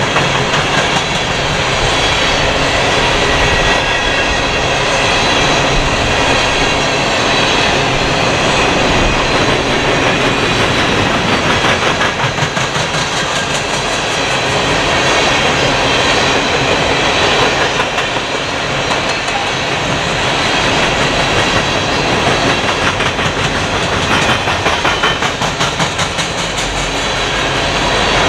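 A freight train of empty steel coal hopper cars rolling past, its wheels clacking over the rail joints in a steady run, with the clacks pulsing more plainly near the end.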